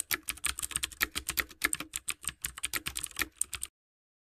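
Computer-keyboard typing sound effect: a fast, uneven run of key clicks that cuts off suddenly near the end.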